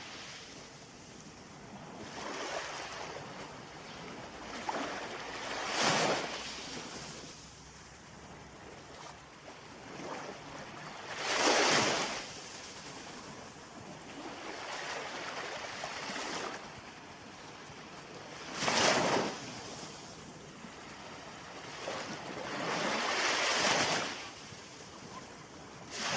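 Ocean waves breaking and washing in: a steady rush of surf that swells into a loud surge every few seconds and then falls away.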